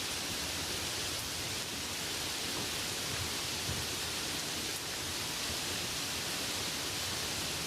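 Light rain falling steadily, an even hiss with no distinct drops standing out.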